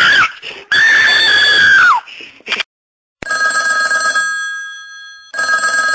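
A high-pitched screaming voice holds a note, drops in pitch and cuts off about two seconds in: the end of a novelty ringtone. After a short silence a telephone rings; the first ring fades out and a second begins near the end.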